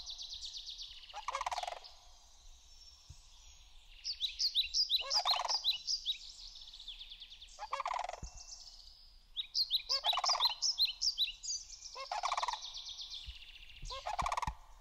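Sandhill cranes calling: rolling, rattling calls repeated every two or three seconds, with higher trilling notes over them from several birds.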